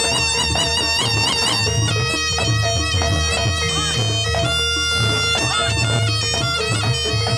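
Jaranan music led by a slompret (Javanese shawm) playing a reedy, trilling melody over a steady held drone and repeated low drum beats.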